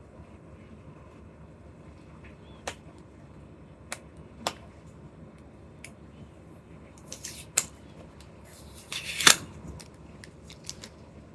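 Packaging being handled during an unboxing: a few sharp plastic clicks and snaps, then crinkling rustles, loudest in a short burst about nine seconds in.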